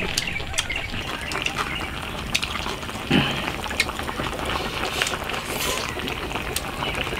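Eating at the table: chopsticks clicking against small bowls, with one louder knock about three seconds in.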